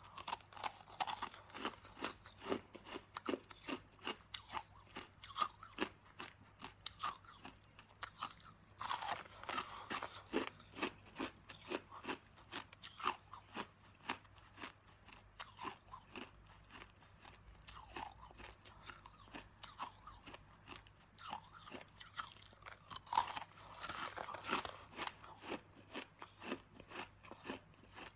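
Crunching of hard, glassy crystal-shaped candy being bitten and chewed close to the microphone: dense crisp cracks throughout, with heavier bites about a second in, around nine seconds and around twenty-three seconds.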